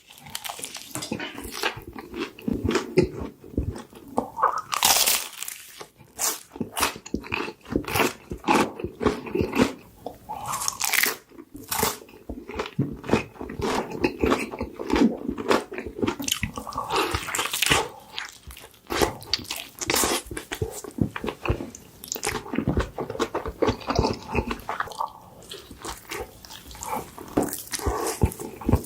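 A person biting into and chewing crunchy fried fast food close to the microphone: dense, crisp crunches one after another, with quieter chewing between bites.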